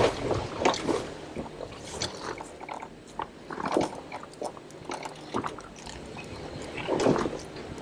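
Jeep crawling over a rocky trail: irregular crunches and knocks, with a denser cluster near the end.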